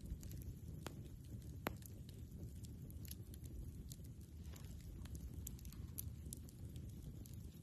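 Wood campfire crackling, with scattered sharp pops and snaps, the loudest a little under two seconds in, over a low steady rumble.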